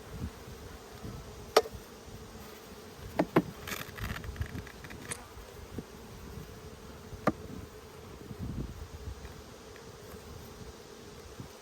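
Honeybees buzzing in a steady hum from an opened hive, broken by a few sharp knocks and clicks as the hive and its frames are worked: one early on, a quick pair a little after three seconds in, and another past the middle.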